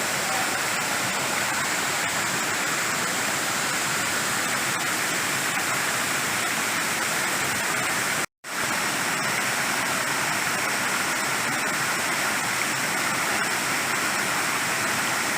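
Waterfall rushing steadily. The sound cuts out completely for a split second just past halfway, then resumes.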